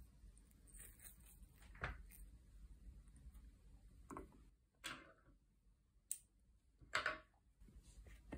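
A few faint handling sounds from embroidery work: short taps and rustles as a hand sets down a spool of thread and brushes over linen stretched in an embroidery hoop. The loudest rustle comes about seven seconds in.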